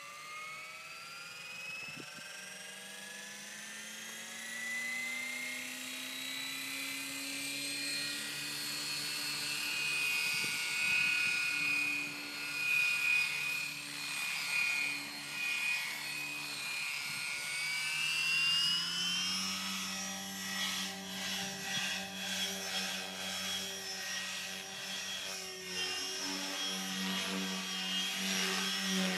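Gaui X4 V2 electric RC helicopter spooling up, its motor and rotor whine rising in pitch over the first ten seconds or so, then holding steady. From about nineteen seconds the sound shifts and wavers as the helicopter flies.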